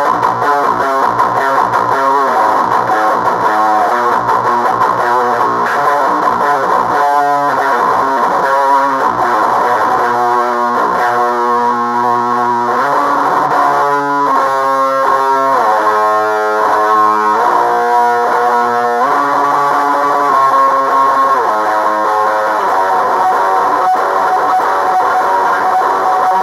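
Electric guitar played through an HM-2 style 'Swedish chainsaw' distortion pedal and a JHS Bonsai overdrive, both switched on, giving a heavily distorted tone. Fast picked riffing gives way to held chords midway, then the riffing returns near the end.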